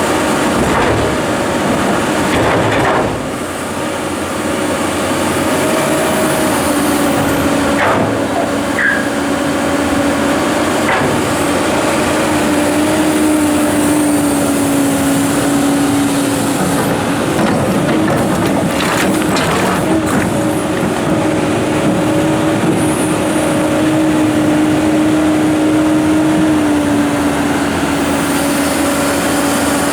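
Komatsu PC290-11 excavator's diesel engine and hydraulics working under load, their steady tone stepping up and down in pitch as the machine moves. A few short knocks, as of big rocks striking the bucket or the truck.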